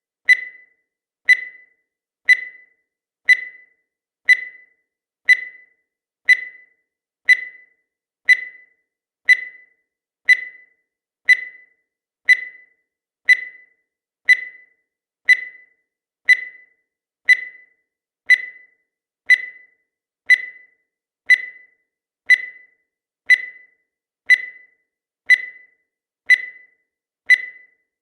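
Countdown timer sound effect: a short, sharp, high tick repeating steadily once a second, each one fading quickly, marking each second counted down.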